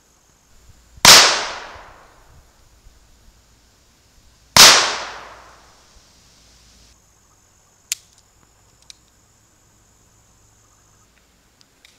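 Ruger Single Six single-action .22 revolver firing .22 Magnum rounds: two shots about three and a half seconds apart, each ringing out for about a second. Two short clicks follow, one sharp and one fainter.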